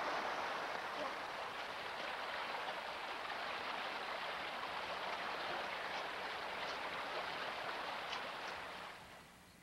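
Running water rushing steadily, dying away near the end.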